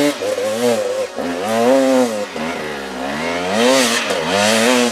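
KTM 300 two-stroke enduro motorcycle engine revving up and down under load, the throttle opened and closed again about five or six times as it climbs a steep, rutted hill.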